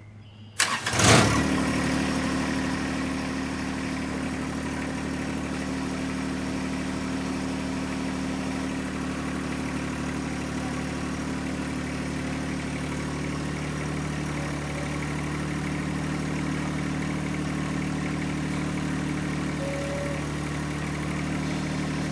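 John Deere 1025R compact tractor's three-cylinder diesel engine starting about a second in, then idling steadily.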